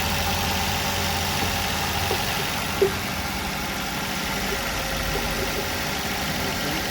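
Maruti Suzuki Swift Dzire K-series VVT engine idling steadily and smoothly just after a cylinder-head and valve repair that cured its misfiring. One short click sounds about three seconds in.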